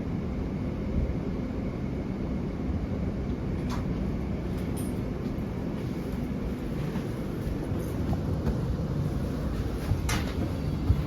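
Cabin noise of a GTX-A express train running: a steady low rumble, with two brief sharp clicks, about four seconds and ten seconds in.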